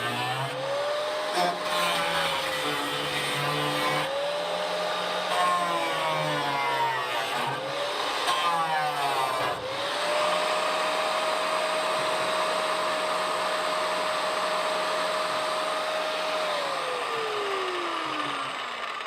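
Grinder cutting through the cab's sheet-metal floor: the motor's whine sags in pitch twice as the wheel bites into the metal. It then spins free at a steady pitch and winds down near the end.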